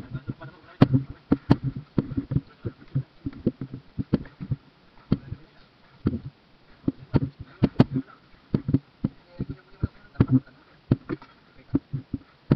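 Irregular knocks and thumps in a boat, coming in uneven clusters and at times several a second.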